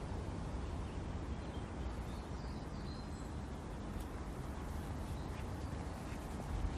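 Outdoor background ambience: a steady low rumble and hiss, with a few faint bird chirps about two to three seconds in.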